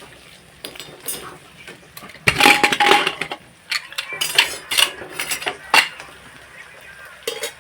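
Metal kitchen utensils clattering and scraping against metal cookware: a loud second of clatter about two seconds in, then a series of sharp single clinks.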